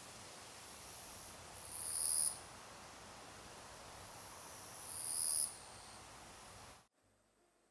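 Cicadas in summer trees: a steady insect hiss with two loud buzzing phrases that swell and then cut off, about two seconds and five seconds in. The sound stops suddenly near the end.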